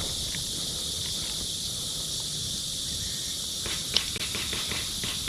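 A steady high-pitched hiss of outdoor background noise over a low rumble, with one short click about four seconds in.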